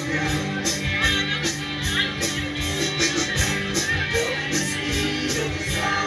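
Live band playing a song: electric guitars, bass, keyboard and drum kit keeping a steady beat, with women singing.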